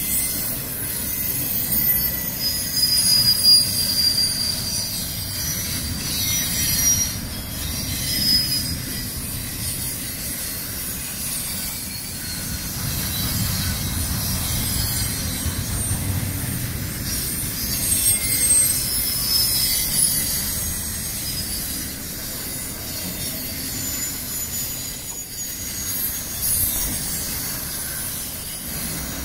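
Double-stack intermodal freight train's well cars rolling past: a steady low rumble of steel wheels on rail, with high-pitched wheel squeal coming and going in several thin tones.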